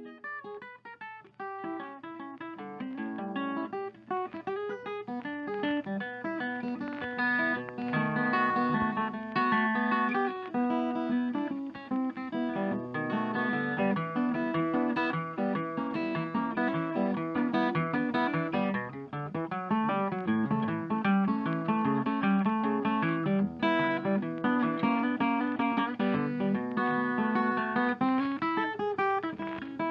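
Background music led by a guitar playing quick plucked notes, building up over the first few seconds.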